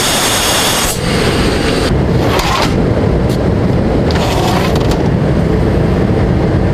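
Oxygen system hissing for about the first second during an O2 check aboard a P-8A Poseidon, then a steady, loud aircraft rumble inside the cabin, with a few short hisses.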